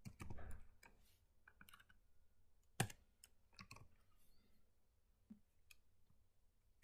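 Faint, scattered keystrokes on a computer keyboard: a few separate key clicks, the sharpest about three seconds in.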